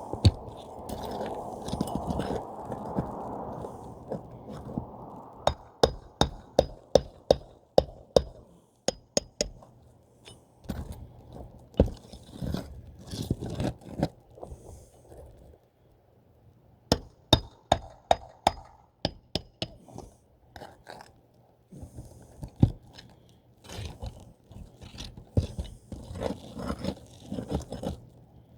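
Hand-tool repair work: a scraping noise for the first few seconds, then runs of sharp metallic taps and clinks with short pauses between them.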